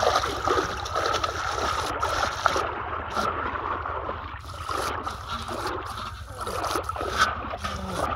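Shallow river water splashing and sloshing as a man wades through it with heavy steps, uneven and continuous.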